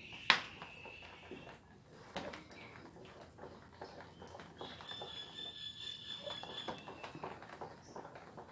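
Wooden spatula stirring thick flour batter in a stainless steel bowl: repeated wet slaps and knocks of the spatula against the bowl, with one sharp knock just after the start. A steady high whistle-like tone sounds for about two seconds past the middle.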